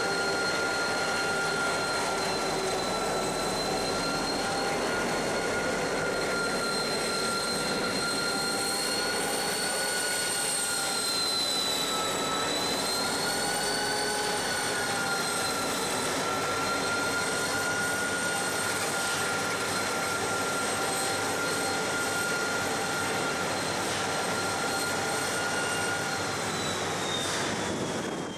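Pacific National BL class diesel locomotive BL32 shunting grain hopper wagons at low speed, with a steady high whine of several tones that drift slightly in pitch, over a low running noise.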